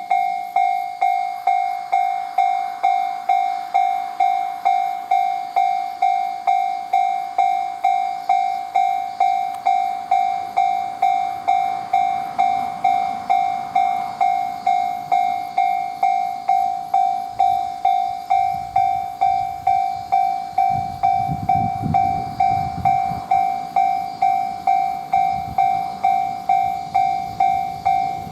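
Japanese level-crossing warning bell ringing, a bright electronic tone struck about twice a second throughout. A train's rumble swells in from about 17 seconds in, is loudest around 21 to 23 seconds, and fades as the train passes through the crossing.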